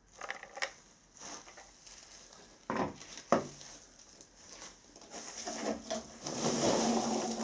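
Two sharp knocks about three seconds in as the printer's plastic control panel is set down on a wooden desk. From about five and a half seconds, a growing rustle of packing peanuts as a hand rummages inside a cardboard box.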